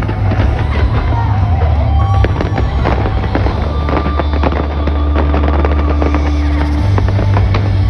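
Fireworks bursting and crackling in rapid, irregular succession, with loud music with heavy bass playing underneath.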